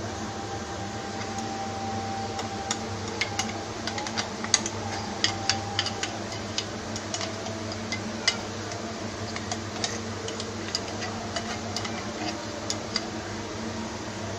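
A spoon clinking and scraping against a mixer-grinder jar as thick ground chutney is scooped out: irregular light clicks, thickest in the first half, over a steady fan hum.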